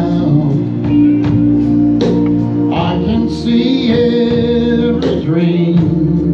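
Live band music with a singer and guitar.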